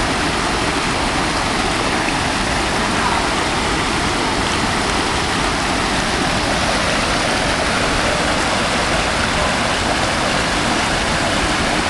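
Steady rush of a small river waterfall pouring over smooth rock into a pool, an unbroken loud water noise.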